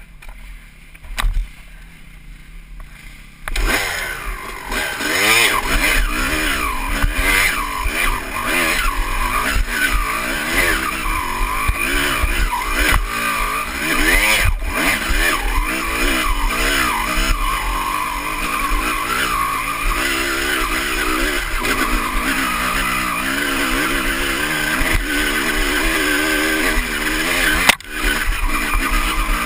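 Honda CR250's two-stroke single-cylinder engine, heard from the rider's helmet, revving hard under load as the dirt bike climbs. Its pitch keeps rising and falling with the throttle. The first few seconds are quieter, with one sharp knock about a second in, before the engine opens up about three and a half seconds in.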